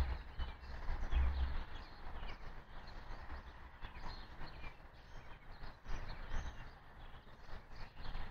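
Outdoor ambience under a passing thunderstorm: birds chirping on and off over a steady background hiss, with a low rumble in the first second and a half.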